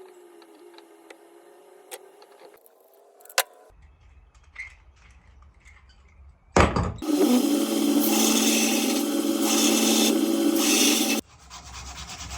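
A few faint tool clicks, then a power tool runs loudly and steadily for about four seconds and cuts off suddenly. It is followed by steady hand sanding of the steel knife blade.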